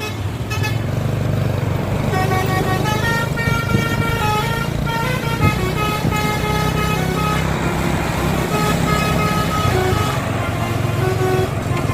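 A bus's 'telolet' multi-tone horn playing a quick tune of short stepped notes, starting a couple of seconds in, over the steady hum of the bus engine running.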